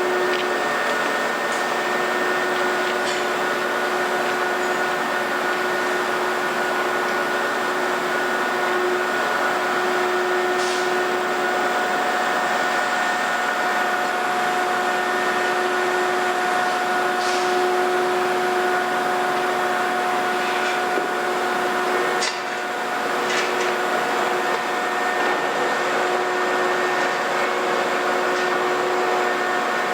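Heavy construction machinery running steadily, a continuous engine drone with a humming whine, with a few short knocks.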